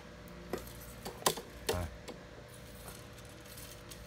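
Fishing rods clacking against each other and the tile floor as they are handled: three short knocks in the first two seconds, the loudest a little over a second in.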